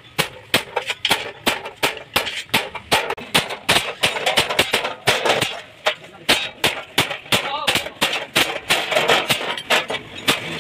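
Rapid, irregular hammer blows on metal, several strikes a second, as the stove's metal is worked.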